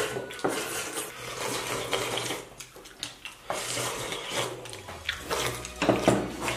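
People slurping thin corn-grit porridge from bowls: several wet sucking slurps, the loudest near the end.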